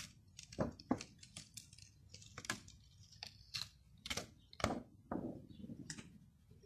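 A stencil sheet being peeled off a sprayed T-shirt: an irregular run of short crackles and clicks as it lifts away from the fabric.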